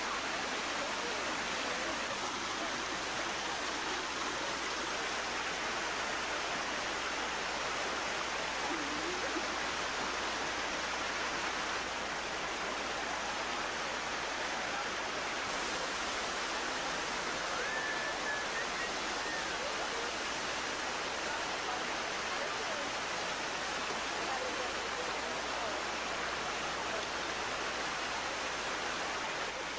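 Steady rush of a river running over rocks in small rapids.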